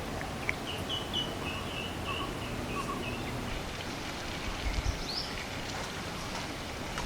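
A small bird singing: a run of short, high notes about a second in, then a single rising chirp around five seconds, over a steady outdoor hiss.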